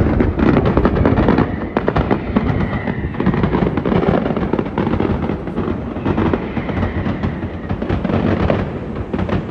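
Mascletà firecrackers going off in a dense, unbroken rattle of bangs. This is a daytime pyrotechnic barrage made for noise rather than sight.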